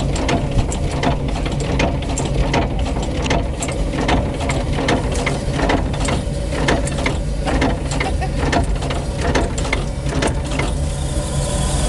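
The African Queen launch's engine running underway: a steady low hum with a continuous clatter of mechanical clicks and knocks.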